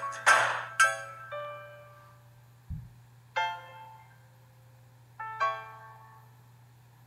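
Music on a keyboard instrument. Repeated struck notes, about two a second, die away in the first two seconds. A brief low thump follows, then two lone struck chords about two seconds apart, over a faint steady low hum.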